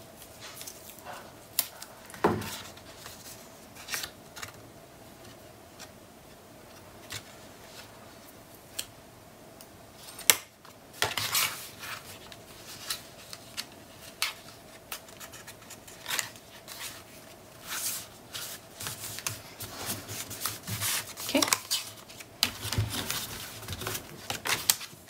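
Cardstock and patterned paper being handled, slid and pressed flat by hand: scattered paper rustles, slides and light taps, with one sharp click about ten seconds in.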